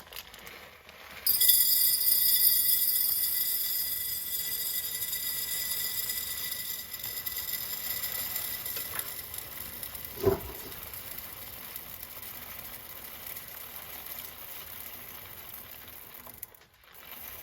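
Dried popcorn kernels poured in a long steady stream from the bag into a container, a continuous hissing rattle. It starts suddenly about a second in and stops abruptly near the end, with one short knock partway through.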